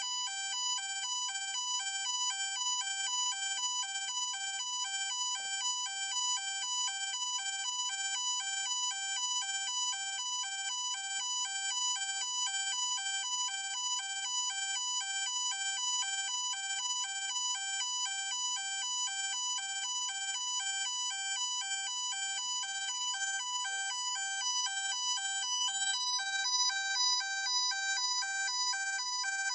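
Ambulance siren in a hi-lo pattern, two electronic tones alternating evenly at a steady pace.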